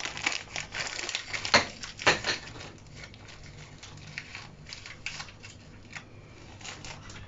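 Crinkling and rustling of a packet of rich tea biscuits as biscuits are taken out, busiest in the first couple of seconds with two sharper crackles about one and a half and two seconds in, then lighter scattered rustles.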